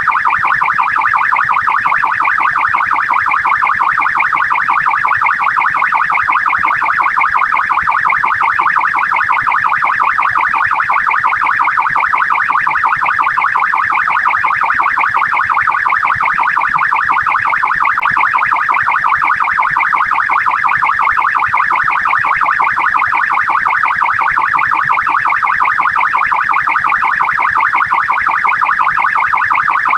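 Australian police car siren sounding continuously in a fast yelp, its pitch sweeping up and down several times a second.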